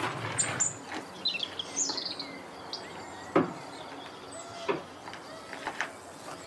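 Small birds chirping and tweeting. A door is handled, with one sharp knock about three and a half seconds in and a softer knock about a second later.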